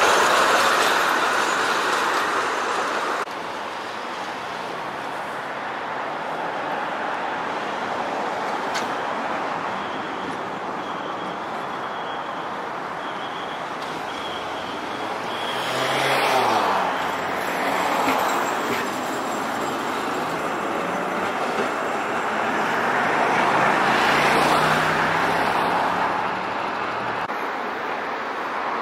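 Trams and road traffic passing on city streets. A loud tram pass cuts off about three seconds in, giving way to steady traffic noise, with a vehicle going by with a falling pitch about halfway through and another swelling pass near the end.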